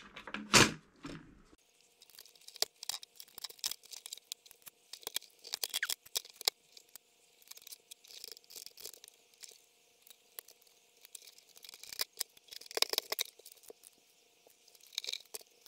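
Irregular light clicks and scratchy rustles of small objects being handled, thin and high-pitched, in scattered clusters, over two faint steady hums.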